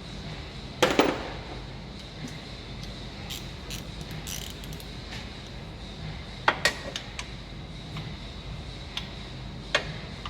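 Hand tools and metal parts knocking and clinking during work on a car: a couple of sharp knocks about a second in, another cluster of clanks past the middle and one near the end, with light ticks between over a low steady hum.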